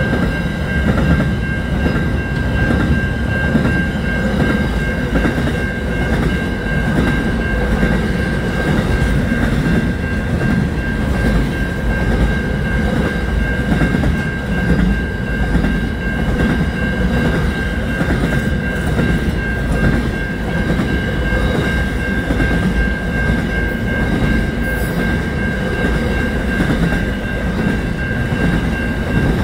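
Container freight train wagons rolling past close by: a steady rumble with wheels clattering over the rail joints, and a steady high tone over it.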